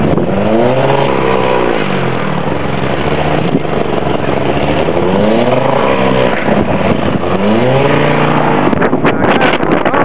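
Car engine revving hard three times, its pitch rising and then falling each time, as the car stuck in deep snow strains to climb the hill. Between the revs it sits at a lower steady note.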